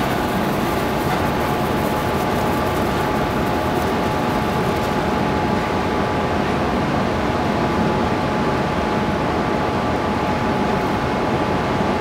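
A steady machinery drone: a constant low rumble with a thin, unchanging hum tone over it.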